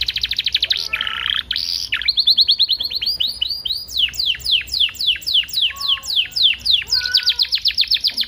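Canary singing a long, varied song of rapid trills. It opens with a fast trill, has a short buzzy note about a second in, then runs into downward-sweeping notes that slow to about four a second, and closes with a fast trill again near the end.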